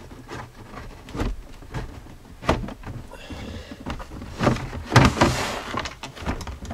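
Hard plastic center console of a Jeep Cherokee XJ being worked loose and lifted out: scattered knocks and clicks of plastic against plastic, with a louder scraping rattle about five seconds in.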